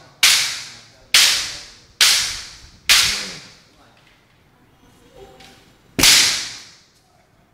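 Bamboo shinai striking kendo armour in sparring: five sharp cracks, four about a second apart, then a pause and a fifth at about six seconds. Each crack rings out in the hall's echo.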